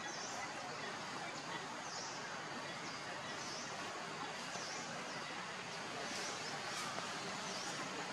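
Outdoor forest ambience: a steady hiss with a short, high, dipping chirp repeated about once a second.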